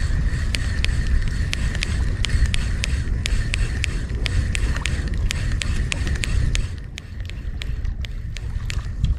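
Spinning fishing reel ticking steadily as its handle is cranked to retrieve a lure, about four sharp clicks a second, over a low rumble of wind on the microphone.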